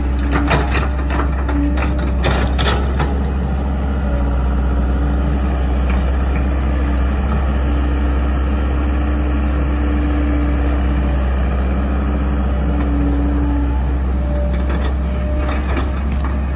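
Caterpillar E120B excavator's diesel engine running steadily, with a tone that swells at times as the hydraulics work. Sharp knocks and scrapes from the bucket working the mud come in the first few seconds and again near the end.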